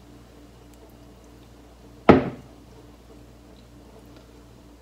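A single sharp clack of tableware on a dish or table about two seconds in, over a faint steady room hum.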